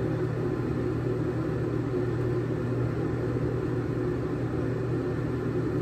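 Steady low machine hum, an even drone that does not change.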